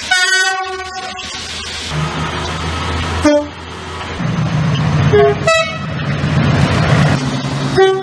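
A run of British train horns cut together: a horn blast of about a second at the start, a short blast just after 3 s, then a Class 142 Pacer diesel unit's engine running with two short horn notes about 5 s in, and another horn just before the end.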